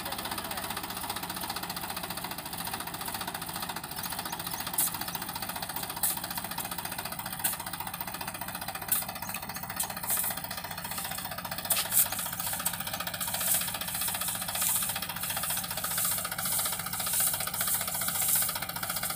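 Sonalika DI 35 tractor's three-cylinder diesel engine running hard and knocking steadily under heavy load, hauling a loaded sand trolley up a slope. Sharp clicks stand out above it now and then.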